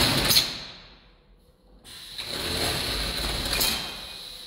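Aluminium roll-up compartment door on a fire engine rattling shut with a bang at the start. About two seconds in, a second run of rattling lasts about two seconds.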